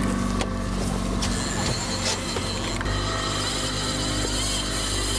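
Boat engine running steadily: a low, even hum with a mechanical whir over it.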